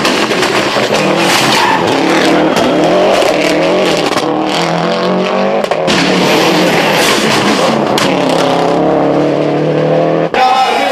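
Subaru Impreza 555 rally car's turbocharged flat-four engine revving hard through the gears on a tarmac stage, its pitch rising and falling as it shifts, with several sharp cracks in between. The sound cuts off abruptly near the end.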